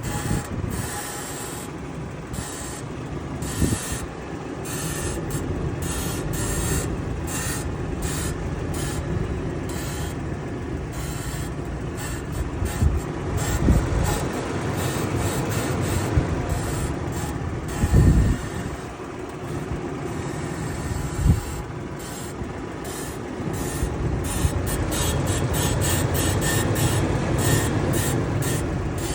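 Toyota Land Cruiser Prado 150's lower control arm ball joint creaking as the steering wheel is turned, over the steady hum of the running vehicle, with a few louder creaks standing out.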